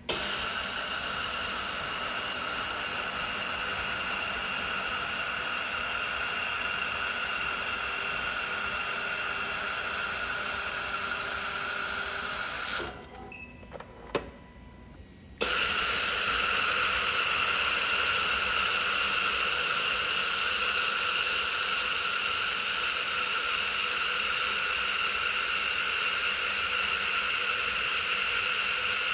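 Handheld laser welder running during a weld: a loud, steady hiss with a high whine. It cuts out abruptly about 13 seconds in, leaving a couple of clicks, and starts again about two seconds later.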